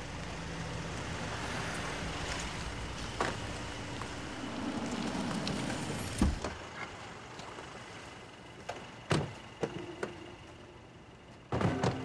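A car engine running steadily, cut off by a heavy thud about six seconds in. A few separate knocks and thumps follow, with a louder thump near the end.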